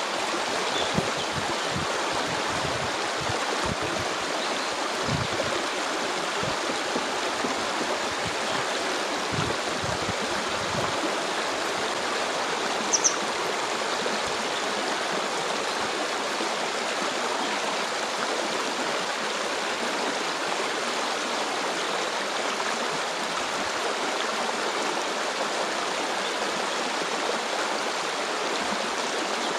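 Stream water flowing steadily, with a continuous rushing sound. Low thumps come and go in roughly the first ten seconds, and a single brief high chirp sounds about thirteen seconds in.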